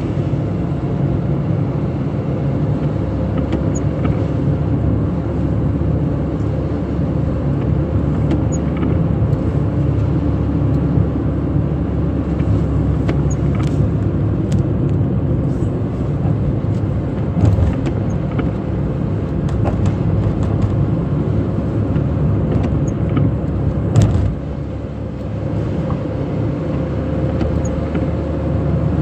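Car driving on a wet road in rain, heard from inside the cabin: a steady low rumble of engine and tyres, with a few scattered clicks and one sharper knock near the end, after which it is a little quieter.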